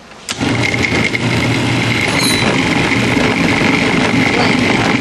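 Food processor switched on just after the start and running steadily and loud, its blade spinning a ball of bread dough around the bowl to mix and knead it.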